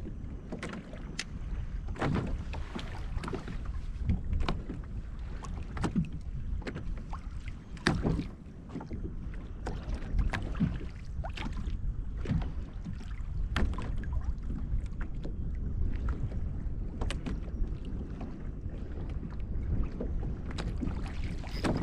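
Small waves slapping and lapping against a fishing kayak's hull, with irregular taps and knocks over a steady low rumble.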